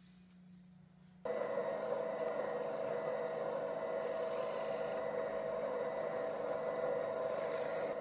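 A power tool running steadily while cutting wood. It starts abruptly about a second in and holds a steady pitch, with two brief stretches of brighter hiss partway through and near the end.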